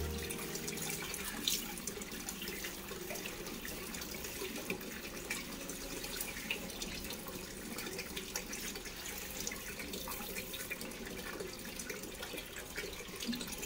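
Small cement garden fountain: a thin stream of water falling from the statue's pot into a plastic tub of water, a steady splashing trickle.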